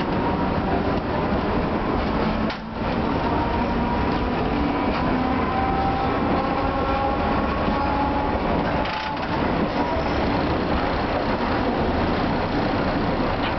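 Tosa Electric Railway streetcar running along street track, heard from inside the car: a steady rumble of wheels on rail with faint tones from the running gear. The sound drops briefly twice, about two and a half seconds and nine seconds in.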